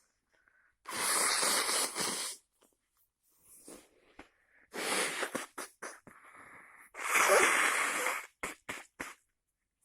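A person with a cold sneezing hard three times, about two to three seconds apart, with wheezy breaths drawn in between.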